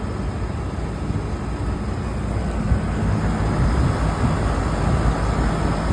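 Package HVAC unit running in cooling, its blower motor wired straight across the line through a contactor with the failed VFD bypassed: a steady rushing air-and-machinery noise with a heavy low rumble.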